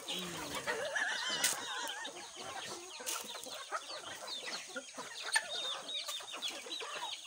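A flock of free-range chickens clucking and calling over one another as they gather to be fed.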